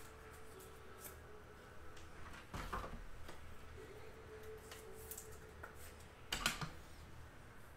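Faint clicks and rustles of trading cards being handled, with two sharper clicks, one about two and a half seconds in and one near six and a half seconds, over a faint steady hum.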